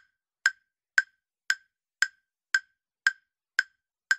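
Countdown-timer ticking sound effect: short, sharp ticks, evenly spaced at about two a second.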